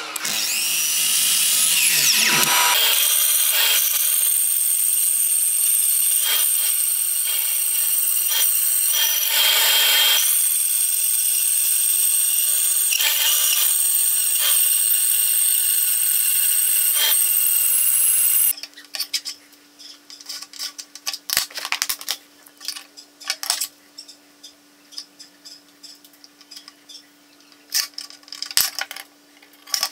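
A miter saw blade spinning down with a falling whine. Then a band saw runs steadily for about fifteen seconds cutting aluminium plate, surging as the blade bites. It stops suddenly, leaving a low hum and the short scratches and clicks of a steel scriber marking the aluminium.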